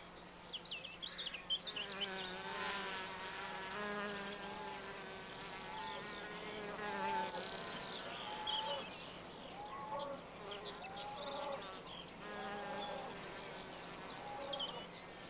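Bumblebees buzzing as they fly among flowers, the hum wavering up and down in pitch and dropping out briefly now and then as the bees come and go.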